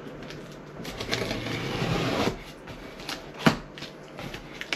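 Hands working at the packing tape on a cardboard shipping box: a rustling, scraping stretch of tape and cardboard, then a single sharp click about three and a half seconds in, with a few lighter clicks and taps.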